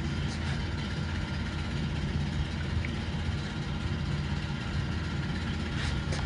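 An engine running steadily at idle, a low even hum that does not change.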